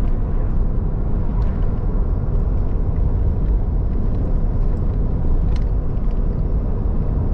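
Steady low rumble of a moving truck on the highway: engine and road noise while driving, with a couple of faint ticks.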